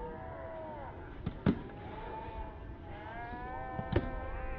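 Soft tennis rackets hitting the rubber ball, two sharp hits: one about a second and a half in and one near the end. Between them come drawn-out shouts of voices.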